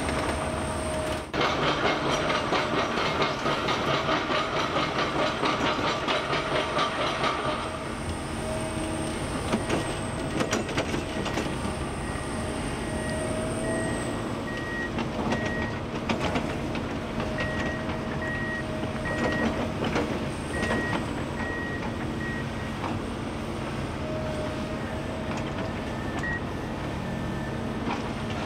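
Kobelco SK260-10 crawler excavator at work. For several seconds after the start there is a fast, dense rattling clatter; then the engine runs steadily, with a warning alarm beeping on and off for a while.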